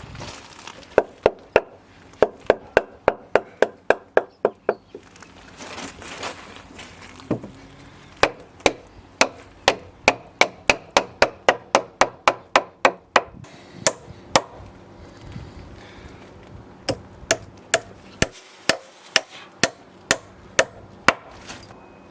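Hammer driving nails into timber: three runs of quick, even blows, about three a second, with short pauses between runs.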